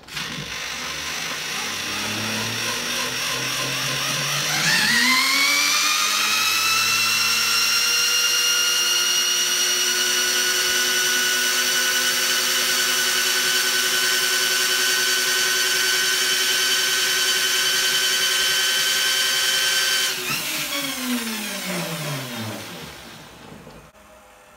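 Power drill spinning a large three-phase motor used as an alternator, with a big pulley wheel on its shaft, for a speed reading. The whine rises slowly, jumps to a steady high pitch about five seconds in, holds for about fifteen seconds, then falls in pitch and dies away near the end as the drill is let off.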